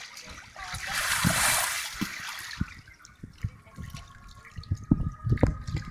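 Pool water splashing and sloshing as a child rolls an inflatable water-walking ball across it, with a loud rush of splashing about a second in. Through the second half come low, irregular thumps.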